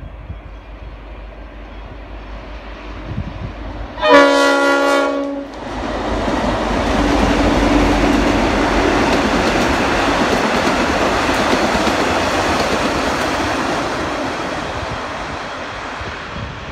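A diesel locomotive hauling passenger carriages sounds its horn once, a blast of about a second and a half, about four seconds in. It then passes close by, the engine and the wheels on the rails making a loud, steady rush that eases off near the end.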